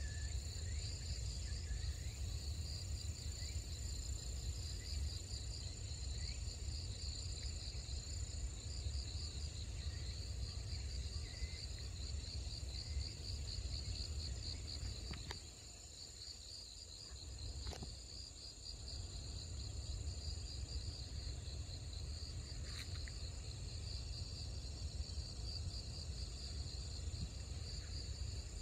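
Insects chirring steadily: a fast-pulsing high trill with a thinner, steadier, higher note above it. Under it runs a low rumble that dies away for a few seconds about halfway through, with a few faint clicks.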